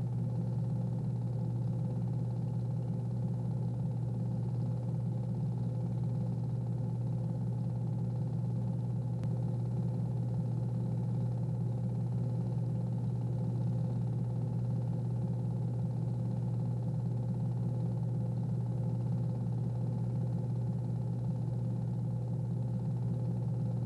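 A steady low mechanical drone that does not change in pitch or loudness.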